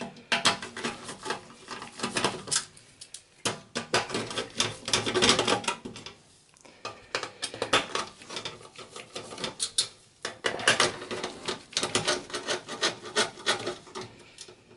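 Screwdriver turning out the hard-drive screws in a sheet-metal PC drive cage: irregular clusters of clicks and metal scraping, with short pauses between screws.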